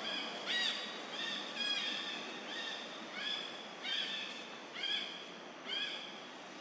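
A young macaque giving short, high-pitched cries over and over, about one every two-thirds of a second, each rising and then falling in pitch.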